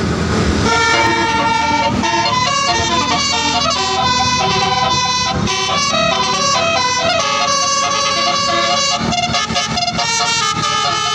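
Tour bus telolet horn: a set of multi-tone horns playing a tune of quickly changing notes, starting about a second in, over the low rumble of the bus engine.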